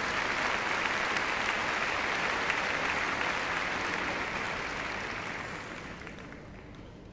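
Large arena crowd applauding, a steady wash of clapping that dies away over the last two seconds.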